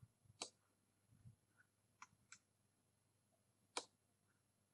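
Near silence broken by a few faint computer mouse clicks: one shortly after the start, a quick pair about two seconds in, and the loudest near the end.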